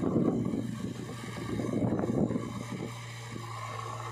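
Diesel engines of a JCB 3DX backhoe loader and a Mahindra tractor running steadily as the backhoe arm swings up to load the trolley. The engine noise surges near the start and again about two seconds in.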